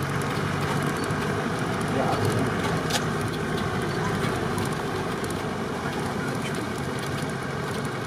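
A vehicle engine running steadily at idle.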